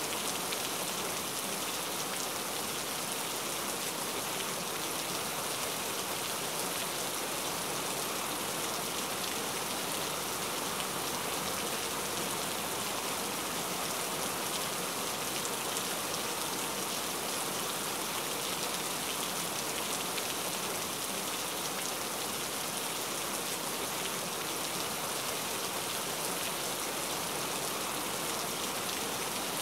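Steady rain: an even, unchanging hiss of falling drops.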